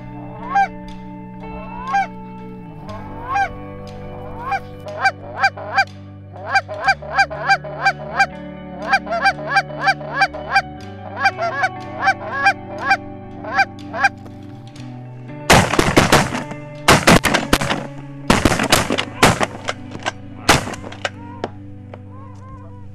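Snow geese calling overhead, a steady run of short, high, yelping honks. About fifteen seconds in, a volley of shotgun shots from several guns follows: roughly ten shots over five seconds, the loudest sound here.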